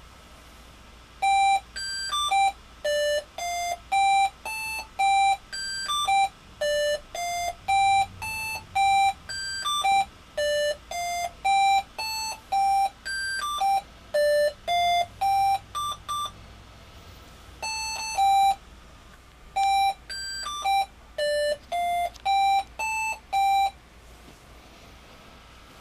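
An Arduino Mega playing an RTTTL ringtone tune as a melody of short electronic beeps, starting about a second in. The tune pauses briefly twice and stops shortly before the end.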